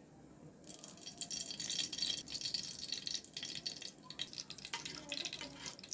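Melted ghee poured into a hot kadhai, sizzling and crackling as it hits the pan, starting about a second in.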